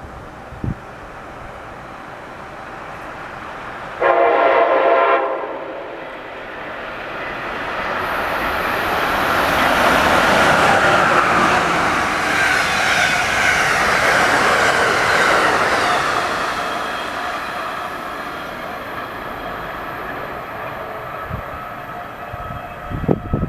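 Amtrak ACS-64 electric locomotive sounding its horn in one blast of about a second and a half. A few seconds later the passenger train passes at speed with a swelling rush of wheels on rails that peaks and then slowly fades.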